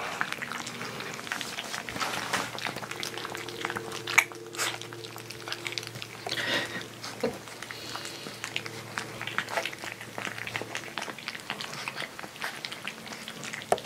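Husky–Malamute puppies eating water-softened kibble from a plate: a busy, continuous patter of small chewing, smacking and lapping clicks.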